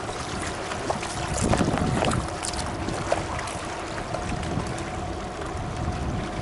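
Wind buffeting the microphone over choppy open water, a steady rushing noise. A few short clicks and knocks come through between about one and a half and two and a half seconds in.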